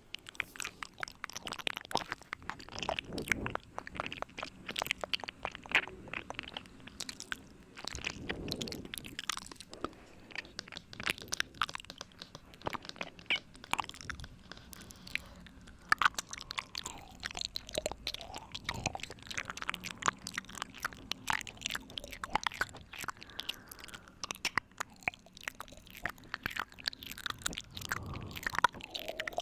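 Close-up ASMR "ear eating" mouth sounds: a dense, irregular run of wet clicks, smacks and licking noises made right at the microphone.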